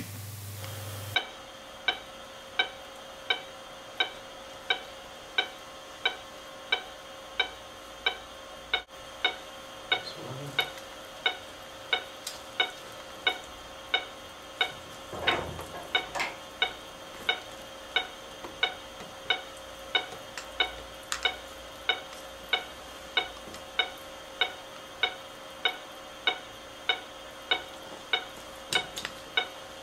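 Anaesthesia patient monitor giving its pulse-oximeter beep with each heartbeat, a short pitched beep about 80 times a minute, steady and unchanging in pitch. A few faint clicks and knocks of equipment being handled come through now and then.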